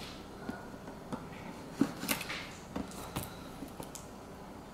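Hands handling a cardboard product box to open it: a few light, scattered taps and scrapes on the cardboard.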